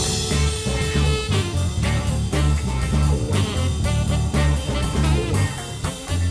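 Background music: an upbeat band track with electric guitar, a bass line and a drum kit keeping a steady beat.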